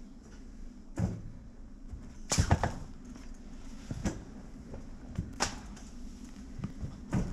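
Scattered knocks and thuds over a steady low hum: single hits about a second in, near four seconds and twice a little after five seconds, a louder quick cluster about two and a half seconds in, and another hit near the end.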